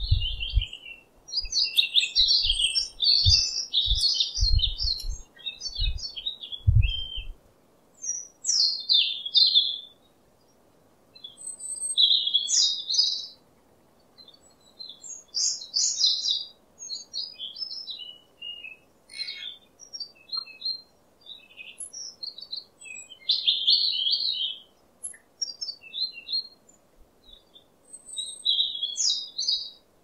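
European robin singing: short, high warbling phrases a second or two long with pauses between them. A few low thumps sound during the first seven seconds or so.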